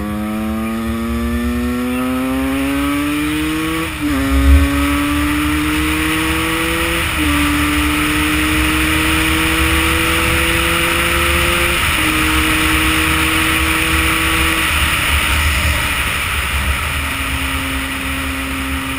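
Two-stroke Husqvarna motorcycle engine accelerating up through the gears. Its note climbs, drops at each of three upshifts about 4, 7 and 12 seconds in, then settles to a steady, lower note near the end, over a loud rushing hiss.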